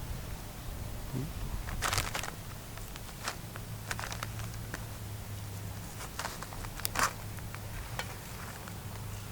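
Scattered soft clicks and rustles, about a dozen short ones, the loudest about two seconds in and near seven seconds, over a low steady hum.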